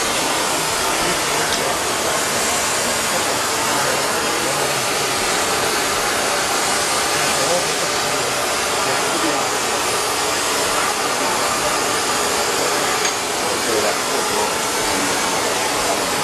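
Oxy-fuel hand torch flame hissing steadily as it heats a forged steel flower held at the vise.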